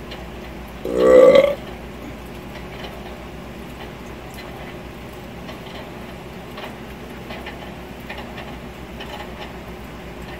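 A person burps once, loudly and briefly, about a second in, in the middle of eating a meal. After that there is only a steady low background hum with faint small clicks.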